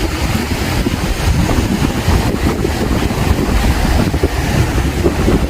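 Sea wind buffeting the microphone over the steady rush of strong waves breaking on the beach.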